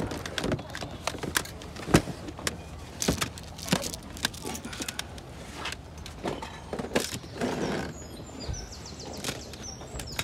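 Irregular clicks and knocks of things being handled, with a brief rustle about seven and a half seconds in.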